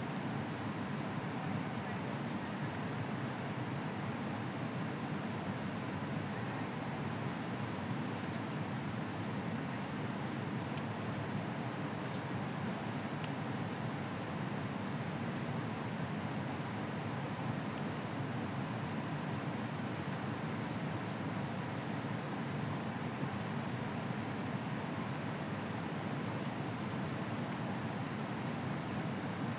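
Steady rush of a flowing river, with a continuous high-pitched insect trill over it.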